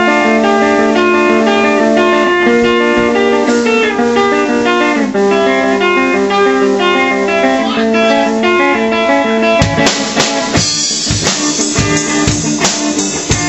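Gibson electric guitar played through an amp, ringing out a changing chord progression on its own. About ten seconds in, a drum kit comes in with a steady beat under the guitar.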